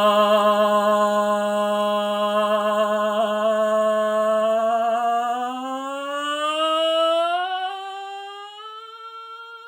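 A man's voice holding one long wordless sung note with a slight vibrato, then sliding slowly upward by more than an octave over the last few seconds while growing quieter.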